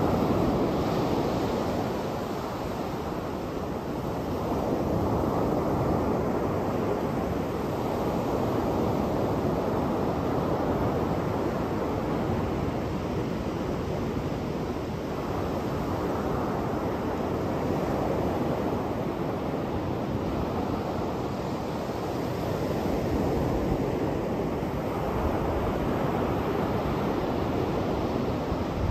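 Surf breaking on a sandy beach: a steady rush of waves that swells and eases every few seconds.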